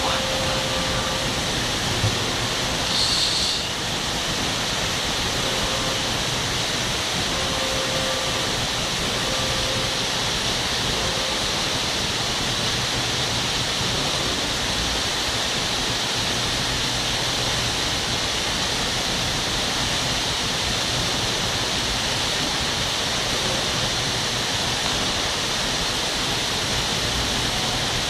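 Large indoor fountain's tall vertical water jet falling back into its basin: a steady rushing splash, briefly a little louder about three seconds in.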